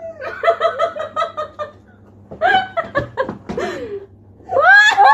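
People laughing out loud in a quick run of short 'ha-ha' bursts. A second bout follows with a few sharp knocks in the middle of it, and a rising cry near the end.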